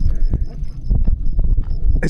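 Wind rumbling on the microphone, with a light, even ticking of about seven or eight ticks a second from a coasting bicycle's freehub, and a few soft knocks.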